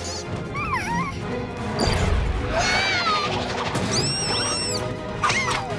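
Cartoon soundtrack of music and sound effects: a low crash about two seconds in, then wavering high gliding tones and a sharp hit near the end.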